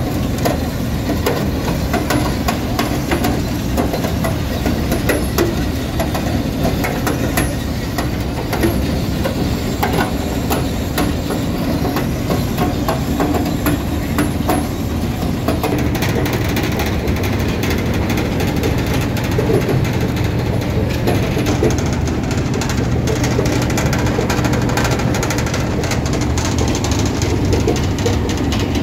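Eagle Crusher 500-05 CV impact crusher, driven by a 200 hp electric motor, running under load while crushing rock. A steady heavy rumble carries a constant clatter of stone knocking inside the machine.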